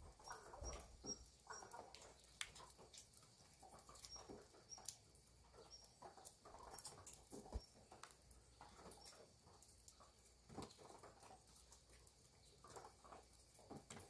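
Near silence of a wet farmyard: scattered faint drips and ticks, a small bird chirping in short high notes, and faint distant animal calls.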